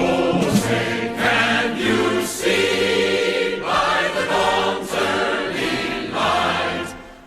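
A choir singing slow, sustained chords that change about once a second, dipping in volume near the end.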